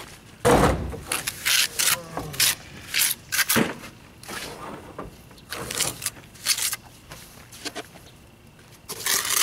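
A gloved hand scooping wet mortar out of a metal mortar pan and working it onto brickwork: a string of short scrapes, with a heavier thud about half a second in.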